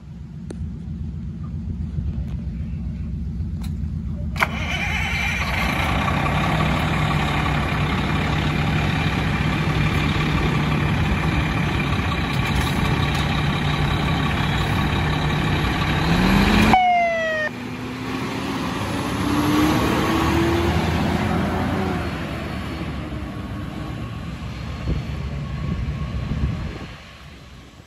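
A 2012 American LaFrance pumper fire engine's diesel engine runs at the curb, getting louder with a steady hum about four seconds in. A little past halfway the sound changes sharply and the engine note rises as the truck pulls away and accelerates, then fades as it drives off.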